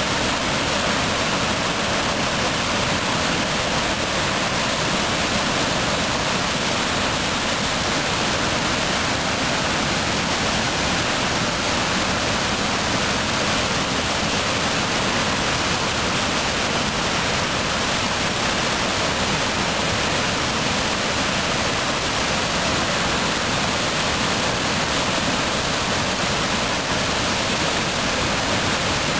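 Brown monsoon floodwater pouring over a curved weir and churning into white water below: a steady, unbroken rush of water.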